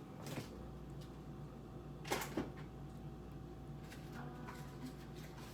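Kitchen items being handled: a click near the start and a sharp clatter of clicks about two seconds in, over a low steady hum.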